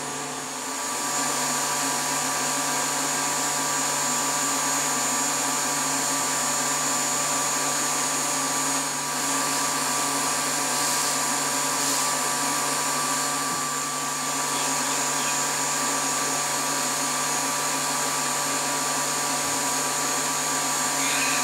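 Vacuum pump for resin infusion running steadily as it warms up before use: an even hum with a high whine over it. Around the middle come a few short hisses from a spray-adhesive can.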